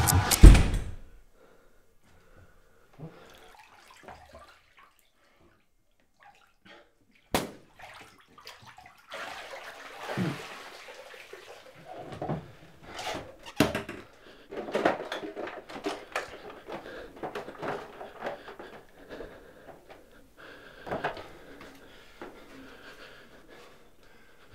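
A music hit ends, then near quiet broken by a sharp click. From about nine seconds in, water runs at a bathroom sink with knocks and clatters of things being handled in a small tiled room.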